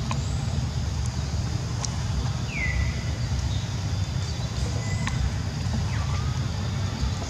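Steady low rumble of outdoor ambience, with two faint, short high calls that slide down in pitch, one about two and a half seconds in and one near the end.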